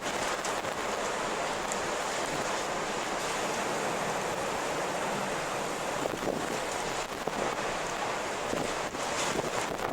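Steady rushing wind, with a few faint short ticks near the end.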